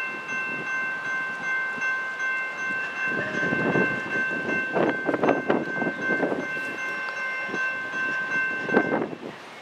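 Multi-chime air horn of the approaching Norfolk Southern GE ES40DC lead locomotive, held as one long chord of several notes for about nine seconds, then cut off. Bursts of rushing noise come in under it about three seconds in and again just before it stops.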